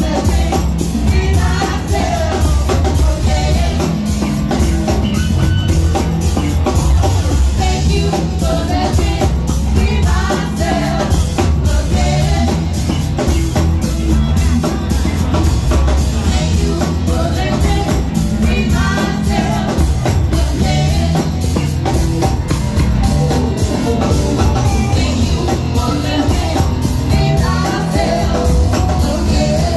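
Live band playing loudly: a woman singing lead over electric bass, keyboards and a drum kit keeping a steady beat.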